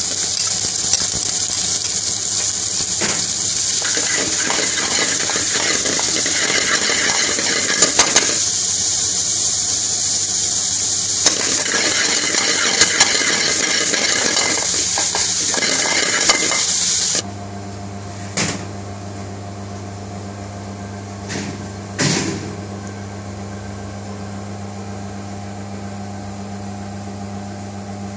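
Sliced red onion and garlic sizzling in hot oil in an aluminium frying pan, with a metal spatula clicking and scraping against the pan as it is stirred. The sizzle cuts off suddenly about seventeen seconds in, leaving a steady low hum with a few light knocks.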